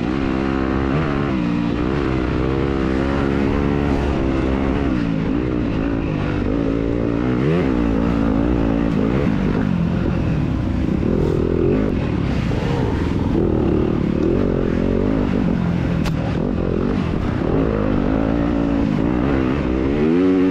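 2021 Yamaha YZ250FX dirt bike's single-cylinder four-stroke engine, heard from on board, revving up and down as the bike is ridden hard, its pitch rising and falling constantly with throttle and gear changes.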